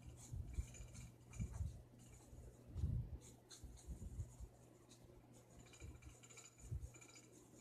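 Drawing strokes scratching on paper, in short irregular runs, with soft knocks from the hand and tool against the desk and a faint steady low hum underneath.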